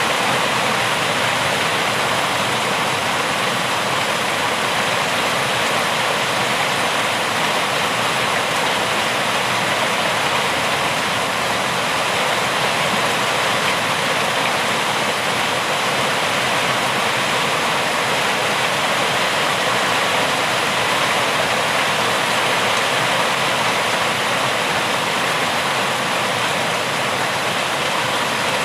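Steady, continuous rain, an even hiss with no separate drops or other events.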